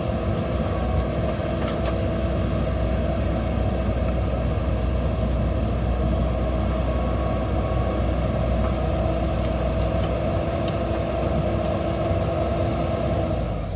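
Diesel engine of heavy earthmoving machinery running steadily at a constant speed, with a level hum.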